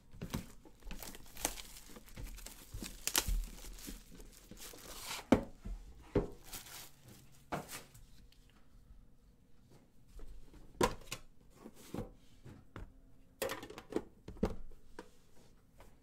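A sealed trading-card box being opened by hand: wrapper and cardboard tearing, crinkling and rustling, broken by short sharp knocks and scrapes as the box and the metal card tin inside it are handled.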